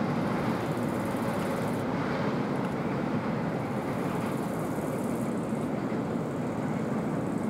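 Steady rumble of a freight train hauled by an electric locomotive, with no distinct knocks or horn.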